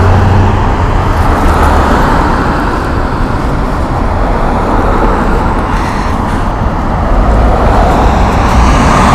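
Sport motorcycle ridden at road speed: steady, loud wind rush and rumble on the helmet camera's microphone over the engine running.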